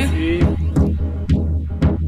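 Electronic music with a steady deep bass and a regular drum beat.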